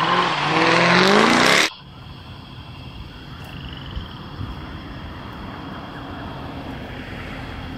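A motor vehicle engine accelerating, its pitch rising, with loud rushing noise; it cuts off abruptly under two seconds in, leaving a quieter steady background.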